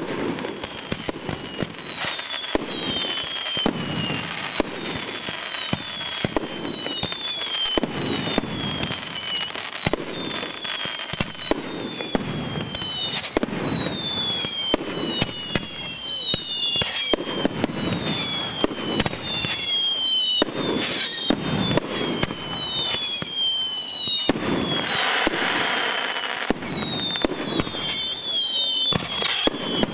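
Aerial fireworks going off in quick succession: many overlapping whistles falling in pitch, with frequent sharp bangs and crackling bursts.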